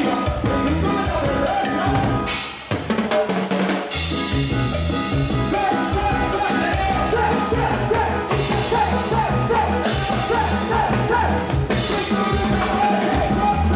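Band music with a drum kit and singing, at a steady beat; the drums break off briefly about two and a half seconds in and come back in about four seconds in.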